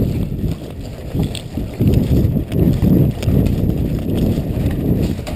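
Footsteps of someone moving quickly along a dirt and grass path, heard as dull, uneven thuds through a body-worn action camera, with gear and clothing rubbing on the microphone.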